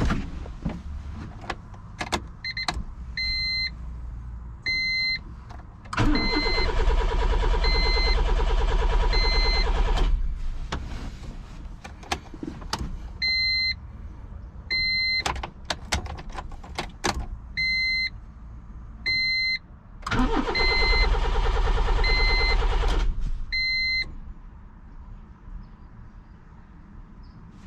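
A Honda's starter cranking the engine in two spells, about four seconds and then three seconds long, without settling into a steady idle. A two-tone beeping chime repeats about every second and a half between and during the attempts.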